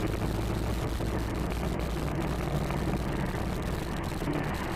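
Steady low hum of a car's engine and tyre noise heard from inside the moving car's cabin.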